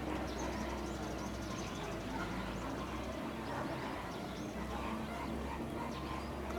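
Background murmur of distant voices with faint, scattered bird chirps over a low steady hum.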